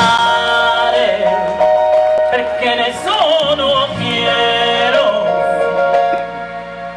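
Recorded music: a song with a singer holding long, sustained notes over instrumental backing.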